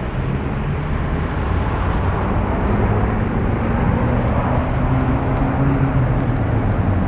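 Road traffic: vehicle engines running with a low, steady hum and road noise, growing slightly louder.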